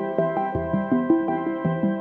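Background music: a quick, steady run of pitched notes, about five a second, with a low bass note coming in about half a second in.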